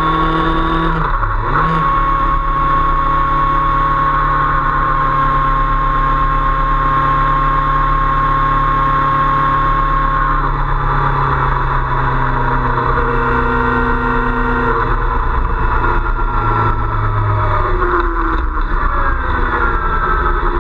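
Motorcycle engine running at road speed with wind and tyre noise, heard from a camera mounted low on the footrest. The engine pitch dips briefly about a second in, holds steady for a long stretch, then falls and rises again near the end as the speed changes.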